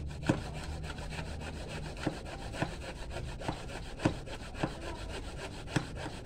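Hand saw cutting wood in quick, even back-and-forth strokes, with a few sharper knocks among them.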